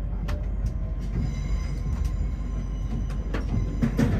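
LNER Azuma train heard from inside the carriage as it pulls out of the station: a steady low rumble with scattered clicks and knocks, and a faint high whine that comes in about a second in.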